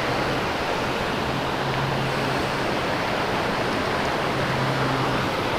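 Steady rush of creek water flowing, an even hiss with no breaks, under a faint low hum.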